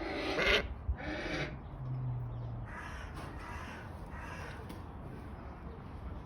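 A large bird's harsh calls: two loud ones in the first second and a half, then three fainter ones about three to four and a half seconds in.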